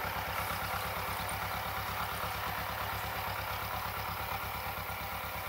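An engine idling steadily with a low, fast, even throb.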